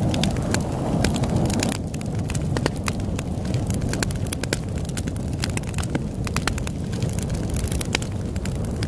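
Campfire crackling, with frequent irregular sharp pops and snaps over a low steady rushing. The rushing thins out about two seconds in.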